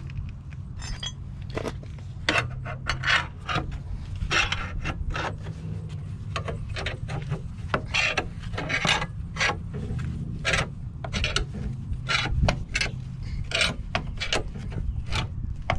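A car jack raising the car: repeated rasping, clicking mechanical strokes, irregular at one to two a second, over a steady low hum.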